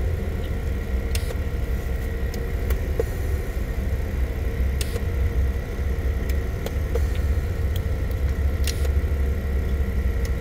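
Car engine idling steadily, heard from inside the cabin as a low, even rumble with a faint hum, with a few light clicks.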